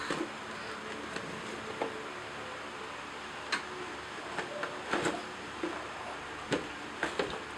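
Scattered light knocks, taps and scrapes of cardboard and plastic as toy doll house parts are handled inside their cardboard box, over a steady faint hiss.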